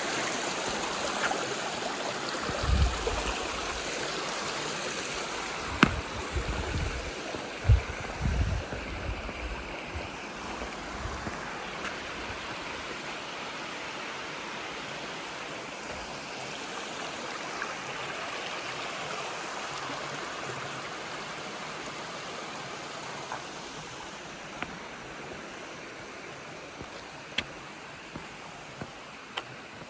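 Running water, a steady rush like a stream, slowly fading; a few low thumps between about three and eleven seconds in.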